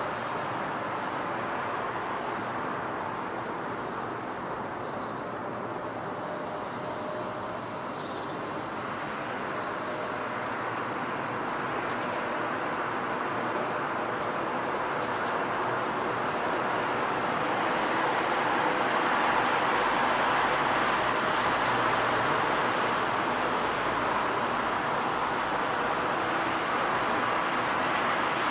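Distant vehicle noise, a steady rush that swells louder through the second half, with short high bird chirps scattered throughout.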